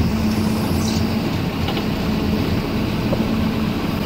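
MerCruiser 3.0 four-cylinder sterndrive engine running steadily at low speed as the boat is put in gear to back off its trailer, a continuous low hum with one steady tone.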